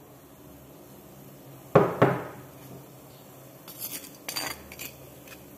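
A metal spoon knocking against cookware while spice paste is added to a pot of boiling water: two sharp clanks in quick succession about two seconds in, then several lighter clinks near the end.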